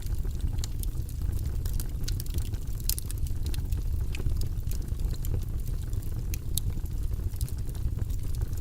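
Wood logs burning in a fireplace: a steady low rush of flame with frequent sharp crackles and pops scattered throughout.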